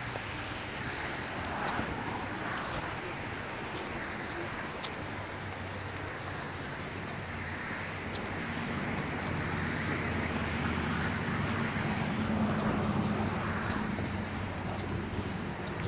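Wind noise rushing over the phone microphone while walking, with a low vehicle hum that grows louder in the second half.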